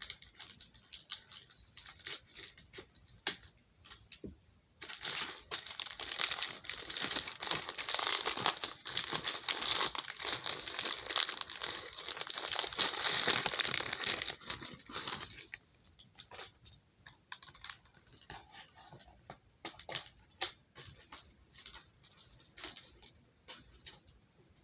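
Packaging crinkling and tearing as new fidget toys are opened, with scattered rustles and clicks; the handling turns into a long, loud stretch of crinkling about five seconds in and dies back to sparse rustles after about fifteen seconds.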